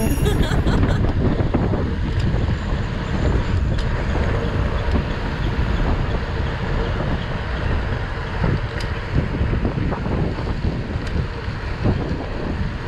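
Wind buffeting on the microphone of a handlebar-mounted camera on a bicycle riding fast, a steady low rumbling rush.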